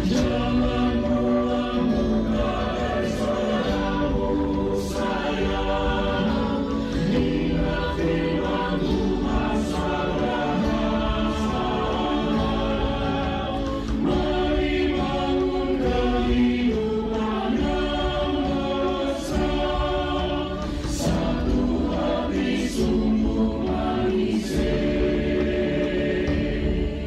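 A choir singing a Christian song over a steady musical backing, with a light, sharp percussion hit about every two seconds.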